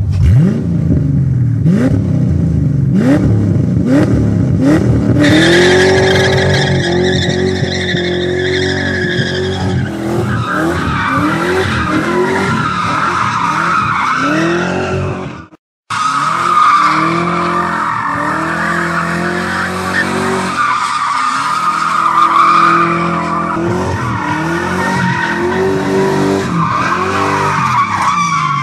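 Ford 302 V8 in a Nissan 240SX revving, then the car drifting: the engine rises and falls in pitch under tyres squealing continuously. The sound cuts out for a moment about halfway through.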